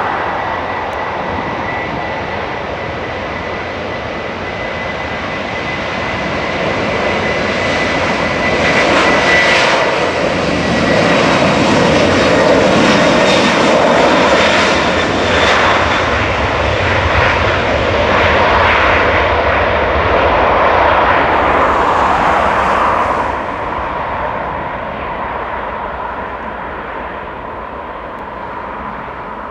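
Airbus A330 twin-engine jet airliner on its take-off roll. A thin high whine from the engines sits over the noise at first, then the engine rumble swells to its loudest through the middle as the jet passes and fades as it accelerates away down the runway.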